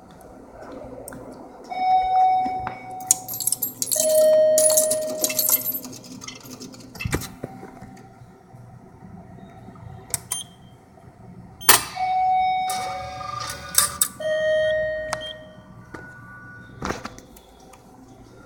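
Electronic two-note ding-dong chime, a higher note and then a lower one, each held about two seconds, sounding twice about ten seconds apart. A few sharp clicks in between.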